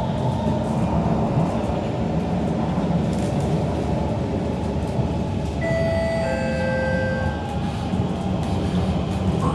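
Kawasaki C151 MRT train running between stations, heard from inside the carriage: a steady rumble of wheels on track. About six seconds in, a few thin, steady high tones ring out together for a second or two.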